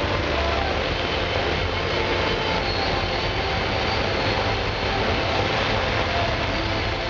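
Fireworks fountains going off together in a continuous, steady rushing roar, with held tones over it and no separate bangs standing out.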